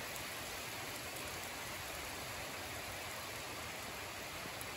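Steady rainfall, an even hiss with a few faint, sharp drop ticks.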